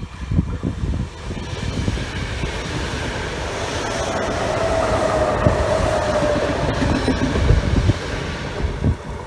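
A train passing on the electrified Südbahn line: the rumble of wheels on the rails swells to a peak in the middle and eases off again, with a whine that falls slightly in pitch at the loudest point. Wind buffets the microphone at the start and end.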